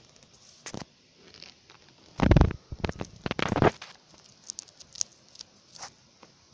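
Two loud, low rumbling bursts of noise on the microphone a little past the middle, followed by scattered light clicks and crackles.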